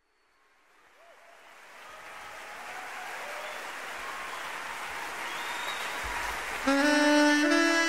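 Applause and crowd noise fading in from silence, then near the end a saxophone comes in playing a jazz tune over it.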